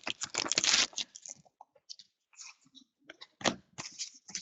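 A trading-card pack wrapper crinkles for about the first second. After that come scattered soft ticks and rustles of the cards being handled, with one sharper tap about three and a half seconds in.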